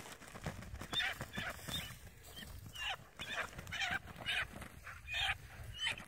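Wounded pheasant calling in distress: a string of short repeated calls, about two a second, starting about a second in.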